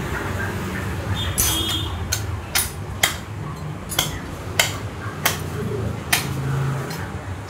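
A butcher's blade chopping into a hanging mutton carcass: about eight sharp chops, roughly one every half second to second, starting about two seconds in. A brief metallic ring comes just before the chops begin.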